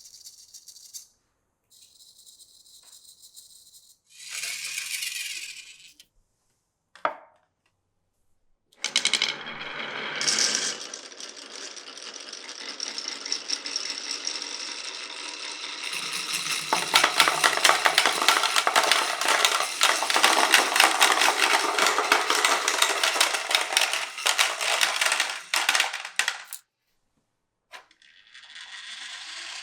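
Glass marbles rolling and clattering down a wooden marble run: a few short separate bursts of rattling, then a long dense stretch of many marbles clicking and rolling together that grows louder about halfway through.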